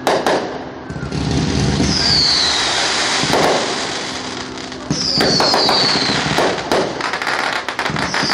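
Fireworks display finale: a dense run of bangs and crackling, with a falling whistle three times, about every three seconds.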